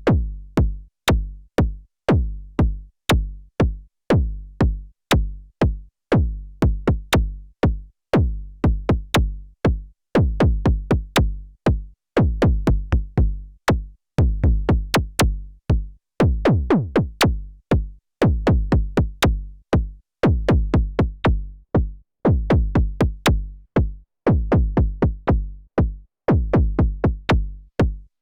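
KORG Volca Kick analog synthesizer playing a sequenced kick and bass pattern. The hits come several a second, each a sharp click that drops quickly in pitch into a deep decaying tone. About halfway through, some notes sweep down longer and deeper.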